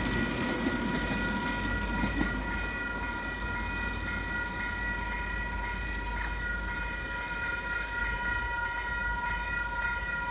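Level crossing warning alarm sounding a steady electronic tone, cutting off right at the end. Low rumble of the departing train fades out in the first couple of seconds.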